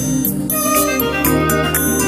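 Theme music with held notes over a steady low bass.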